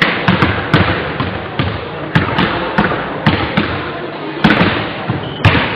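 Basketball bouncing on a sports hall's wooden floor: a dozen or so irregularly spaced thumps, each followed by a short echo in the big hall, with voices in the background.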